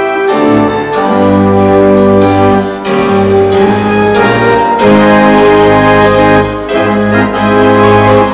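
Organ music: slow, held chords over a bass line, changing about once a second.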